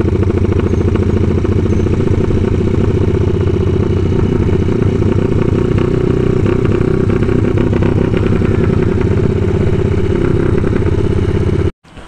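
Motorcycle engine running at a steady pace while riding, its exhaust pulsing evenly with little change in revs; it cuts off abruptly near the end.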